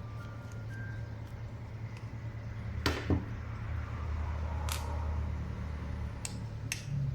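Small parts of a titanium frame-lock folding knife being handled during disassembly: a few sharp clicks and taps, a double one about three seconds in, over a steady low hum.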